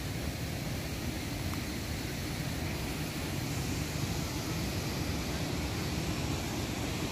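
Steady rushing noise of a waterfall heard from a distance: an even roar of falling water with no breaks.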